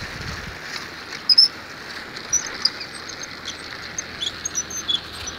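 Wind and tyre rush from bicycles riding on asphalt, with a scatter of short, high-pitched chirps or squeaks that start about a second in, the loudest pair coming first.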